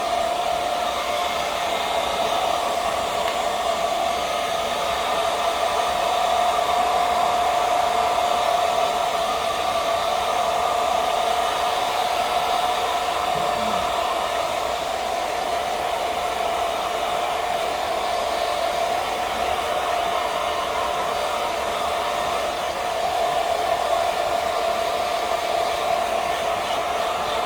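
Hair dryer blowing steadily, a constant rushing whir with a steady hum in it, its loudness swelling a little now and then.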